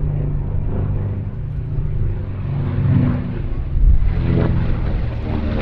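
Piston engines of World War II propeller warbirds flying a display pass, a steady engine drone that swells somewhat past the middle.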